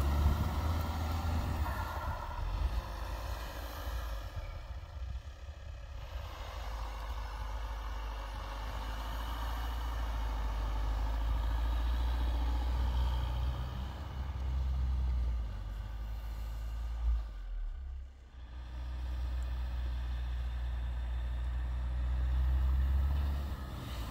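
Skoda Kodiaq's 2.0 TDI four-cylinder diesel running under heavy load as the SUV ploughs through deep snow on front-wheel chains, its tyres churning and throwing snow. The engine sound swells and eases with the throttle and dips briefly about three-quarters of the way in.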